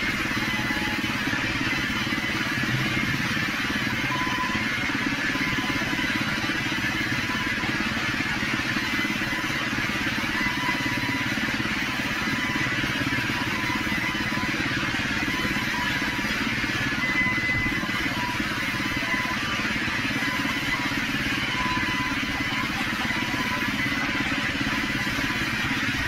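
Sawmill machinery running steadily: an even, engine-like mechanical noise that holds the same level throughout.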